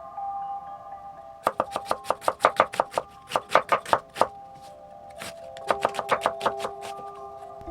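Kitchen knife chopping quickly on a cutting board, about six strokes a second for nearly three seconds from a second and a half in, then a shorter run near the end. Light mallet-percussion background music plays throughout.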